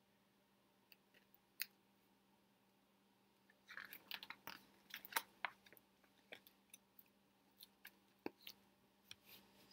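Near silence broken by faint crackles and clicks of a hardcover picture book's paper page being turned and the book handled, bunched together about four seconds in, with a few scattered clicks after.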